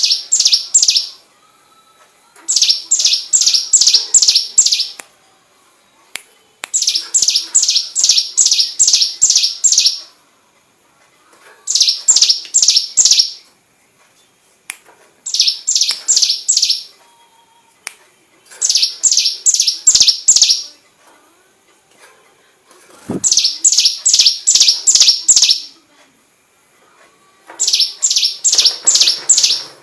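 A prinia singing, repeating a burst of rapid, evenly spaced high notes, the 'tembakan' phrase it has copied from a white-rumped shama. The burst comes eight times, each lasting one to three seconds, with short pauses between.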